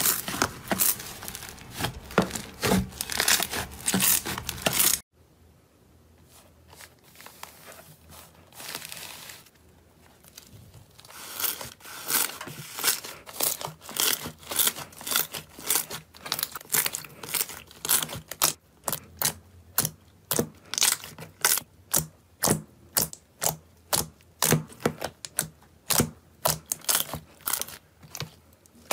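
Hands pressing and kneading a large tub of soft, fluffy slime, giving dense crackling and sharp popping clicks. The sound cuts off suddenly about five seconds in, stays faint, then the crackles and pops come back in quick, irregular clicks from about eleven seconds on.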